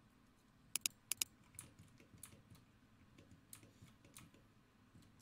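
Faint clicks of a computer mouse and keyboard. Two quick pairs of sharp clicks come about a second in, then scattered lighter taps follow.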